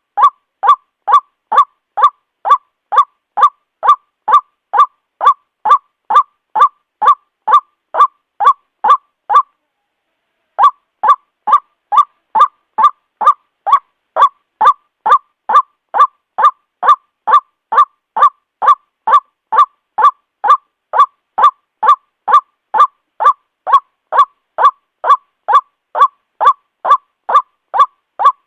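White-breasted waterhen giving its harsh, evenly repeated 'kwak' call about twice a second, with one short break about ten seconds in.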